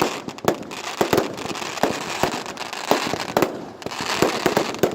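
Fireworks display: an irregular string of sharp bangs and pops, about two to three a second, over a continuous hiss.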